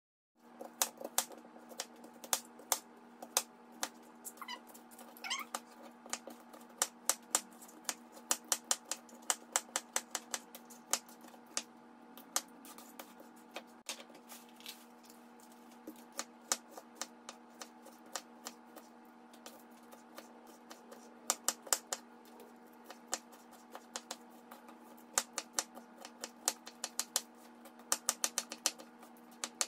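Kitchen knife chopping onion and green bell pepper on a plastic cutting board: quick, irregular taps in runs, over a steady hum.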